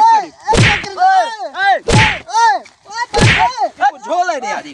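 Three heavy slap-like thwacks, about a second and a half apart, from a man being beaten with a sandal in a staged slapstick fight. Between the blows come repeated high yelps that rise and fall several times a second.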